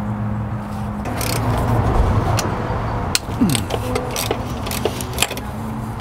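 Socket wrench and metal fittings clinking as engine parts are unbolted: irregular sharp clicks over a steady low hum.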